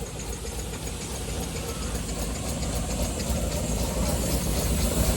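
Miniature steam road locomotive, a 4-inch scale Burrell single-crank compound, running as it comes in, a low steady hum with a quick regular ticking above it, slowly growing louder.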